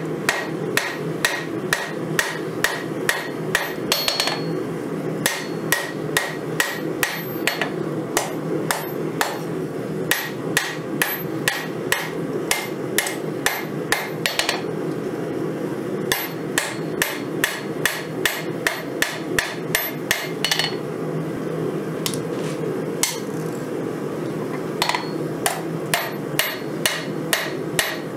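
Hammer blows forging a red-hot 5160 steel knife blade on an anvil, about three a second with a few short pauses. Each blow is a sharp strike with a brief ring. A steady low rumble runs underneath.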